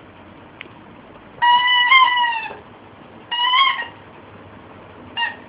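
A squeaky toy squeaking as a shih-tzu bites down on it: a long squeak of over a second, a shorter one, and another starting near the end, each holding a steady pitch with a slight wobble.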